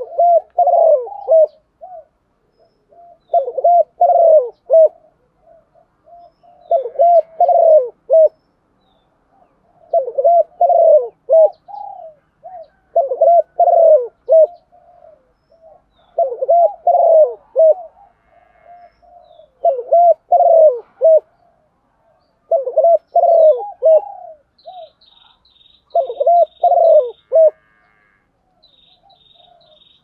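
Spotted dove cooing: the female's call that excites male doves, nine phrases of several short coos each, about one every three seconds. Faint high chirps from a small bird come in near the end.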